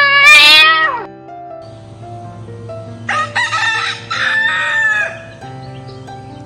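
A rooster crows once, a call of about two seconds that starts about three seconds in. In the first second a long cat meow trails off, falling in pitch. Background music with held notes plays underneath.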